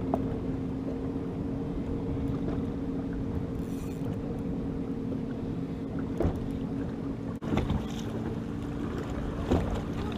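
Steady hum of a bass boat's electric trolling motor holding position, with wind on the microphone. A few short knocks come in the second half while a hooked bass is reeled to the boat.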